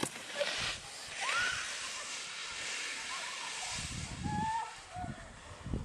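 Skis hissing and scraping over snow, with two louder swishes about half a second and a second and a half in. Faint voices call now and then.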